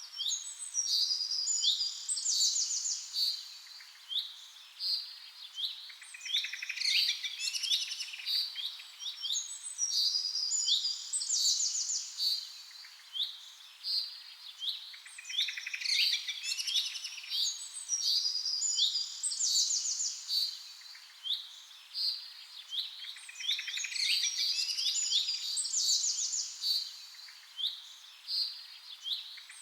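Songbirds chirping and singing, a dense chorus of high chirps and rapid trills that rises and falls in bouts every few seconds.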